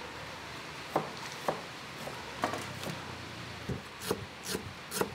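Cleaver chopping lemongrass and turmeric on a wooden chopping board: about eight separate knocks, spaced unevenly and coming faster in the second half.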